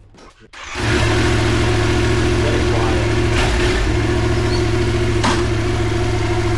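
Yamaha MT-07's 689 cc parallel-twin engine starting about half a second in and then idling steadily on its stock exhaust.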